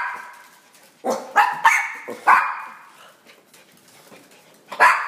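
Small dogs barking for a treat: a quick run of four sharp barks, a pause, then one more bark near the end.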